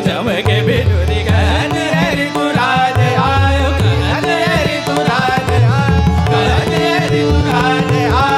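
Indian classical music with tabla: a gliding melody line over deep, recurring tabla bass strokes.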